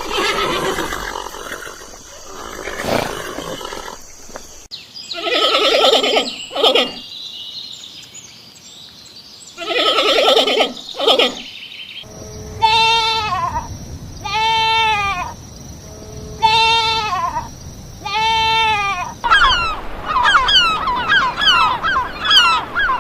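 A run of farm animal calls: two harsh bleats, then four evenly spaced calls that rise and fall in pitch, about a second each, and from about three-quarters of the way through a flock of geese honking rapidly.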